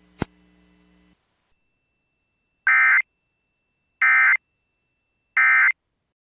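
Emergency Alert System end-of-message signal: three short, identical bursts of SAME digital data tones about a second apart, marking the close of the alert. A single click and a brief faint hum come just before them.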